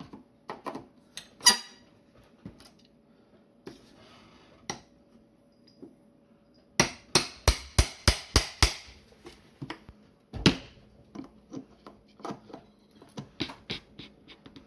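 Hammer striking a nail puller driven into the corner of a wooden ammunition crate. There are scattered taps, then a quick run of about seven blows in about two seconds, a single heavy blow about ten seconds in, and lighter taps near the end.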